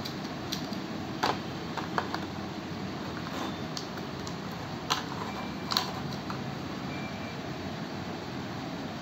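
Light clicks and taps of a metal hair trimmer and its battery being handled in a plastic packaging tray, with four sharper clicks spread through, over a steady background hiss.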